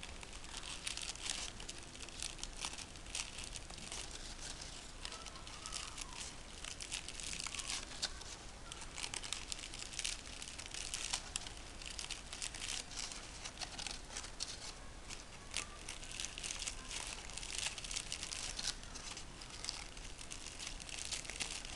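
Crepe paper crinkling and rustling in the hands as petals are wrapped around a wire stem to build up a paper rose, a steady rustle full of small crackles.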